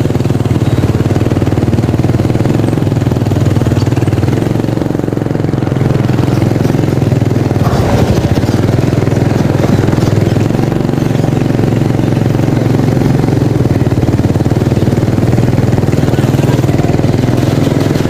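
Small motorcycle engine running steadily as the bike rides along, heard close up from the handlebars as a loud low hum with a fast even pulse.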